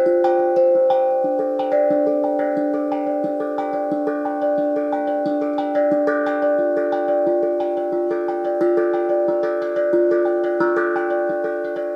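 Hank drum, a steel tongue drum tuned to a D-minor pentatonic scale (D-F-G-A-C-d-f-g), played with two mallets. It plays a steady flowing melody of about two to three strikes a second, each note ringing on and overlapping the next.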